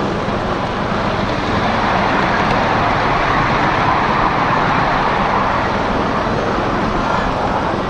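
Steady running noise of a ridable miniature train's cars rolling along the track, growing a little louder midway.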